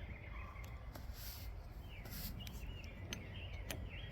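A few faint light clicks and taps of small carburetor parts being handled during reassembly, over a quiet background.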